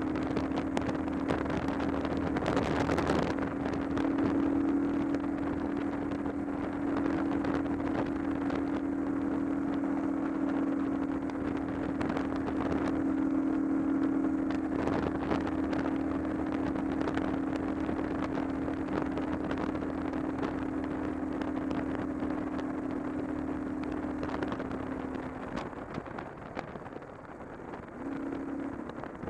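Motorcycle engine running at a steady cruising speed, with wind rushing past the microphone. Near the end the steady engine note drops away, then comes back briefly.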